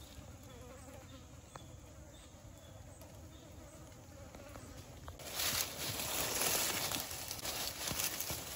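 A Komodo dragon feeding on goat ribs in dry leaf litter. There are a few faint ticks at first, then from about five seconds in a loud, uneven rustling and crackling as it tears at the carcass among the leaves.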